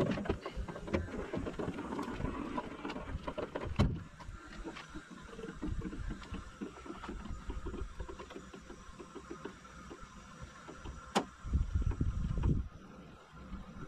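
Aluminium dinghy being tipped down off a 4WD's roof rack: irregular metallic knocks, scrapes and rattles. There is a sharp knock about four seconds in, another near eleven seconds, and a louder low rumble just after it.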